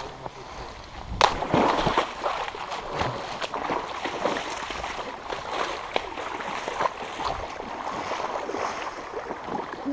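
Boots splashing and sloshing through a shallow stream as a person wades, beginning with a loud splash about a second in as he steps into the water.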